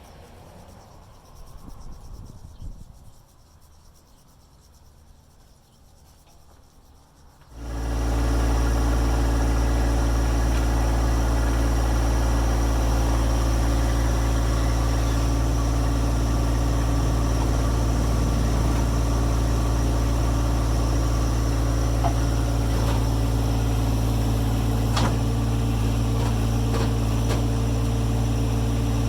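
John Deere 1025R tractor's three-cylinder diesel engine comes in suddenly about a third of the way in, then runs steadily at an even idle-like speed. Before that there is only faint outdoor background with insects.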